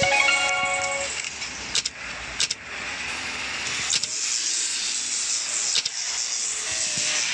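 Steady hissing noise, with a short tonal note in the first second and scattered sharp clicks.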